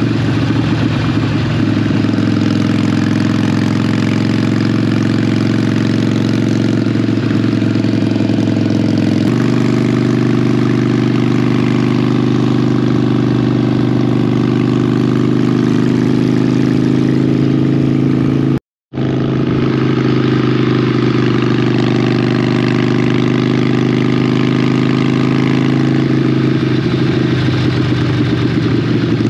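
Motorcycle engine running steadily at a constant speed while riding. The sound shifts slightly about a third of the way in and cuts out completely for a split second about two-thirds of the way in.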